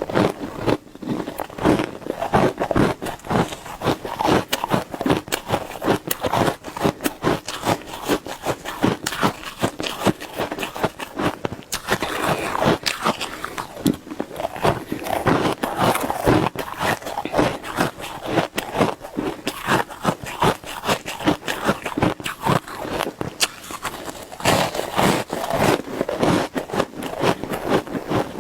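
Shaved ice being bitten and chewed close to the microphone: a fast, continuous run of crunches and crackles.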